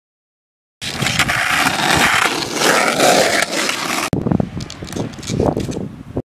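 Skateboard wheels rolling on rough asphalt, a loud steady rolling noise that cuts off abruptly about four seconds in. Then quieter scuffs and a few light knocks of the board and shoes on the tarmac.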